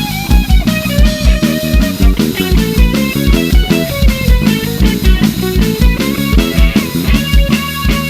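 Rock band playing an instrumental passage: a lead guitar line with bending notes over sustained chords, bass and a drum kit keeping a steady beat.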